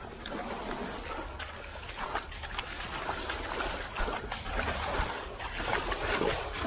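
Wellington-booted footsteps wading fast through shallow incoming tidewater, with irregular splashing and sloshing at each step.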